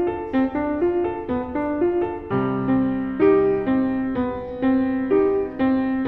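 Solo piano playing a quick, even stream of single notes, about four or five a second. A little over two seconds in, a low bass chord sounds beneath them and is held for about two seconds.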